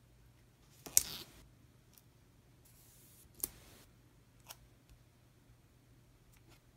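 Washi tape being laid on a paper planner page and pressed down by hand: a sharp tick with a short rustle about a second in, a soft brushing sound, a second tick and rustle just before halfway, then a few faint taps.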